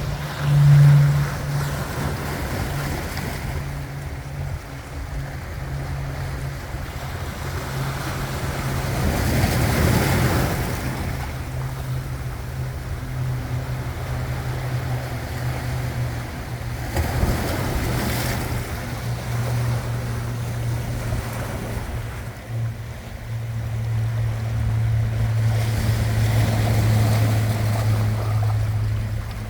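Sea waves washing in, with swells of surf about ten seconds in, again around seventeen seconds, and a longer one near the end. A steady low hum runs underneath.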